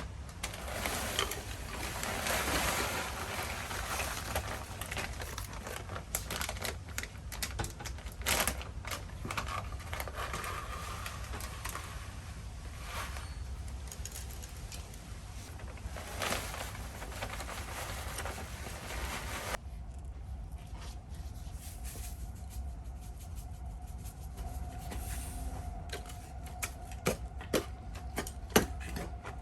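Rustling and many small clicks and taps of hands at work, over a steady low hum. About two-thirds through it cuts to a quieter stretch with a faint steady tone and a few clicks.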